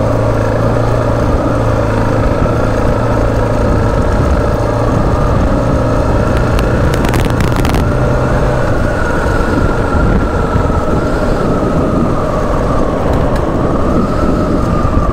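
Suzuki DR dual-sport motorcycle engine running steadily while riding along a dirt road, its pitch easing slightly lower near the end.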